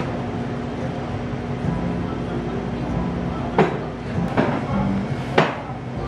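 Three sharp knocks in the second half, as sandwich cookies are handled and set down on a stainless steel worktable, over a steady hum of kitchen machinery.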